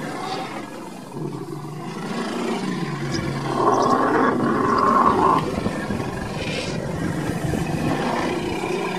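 Lion roaring, loudest from about three to five and a half seconds in.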